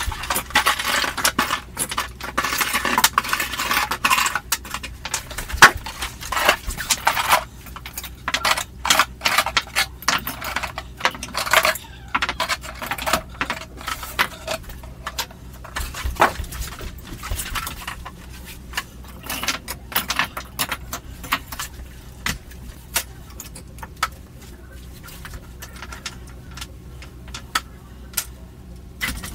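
Meccano metal parts clinking and rattling as they are handled and set down on a table, many small clicks in quick succession, with rustling of a cardboard box in the first few seconds. The clinking grows sparser in the last third.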